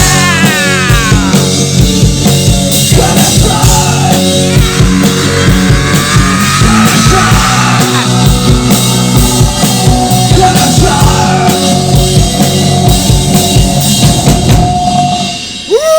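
Live rock band playing loudly, with a driving drum kit beat under sustained guitar and instrument notes. The level dips briefly near the end, then comes back in hard.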